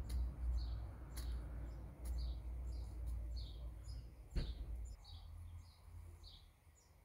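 A small bird chirping over and over in short, evenly repeated notes. Under it there is a low rumble for most of the first five seconds, and two sharp clicks, about a second in and again after about four seconds.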